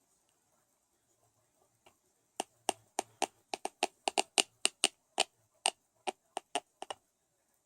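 Teeth clacking together in bruxism: a fast, irregular run of about twenty sharp clicks, starting about two and a half seconds in and stopping about two seconds before the end.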